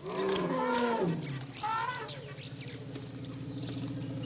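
Playback of an African savanna field recording: a steady chorus of insects, with a low gliding animal call in the first second or so and a higher rising-and-falling call near two seconds. From about a second and a half in, a steady pulsing drone sets in underneath.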